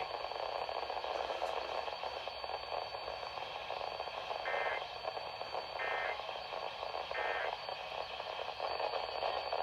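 Radio hiss with three short, buzzy data bursts about a second and a half apart in the middle: the Emergency Alert System's end-of-message code closing a tornado warning broadcast.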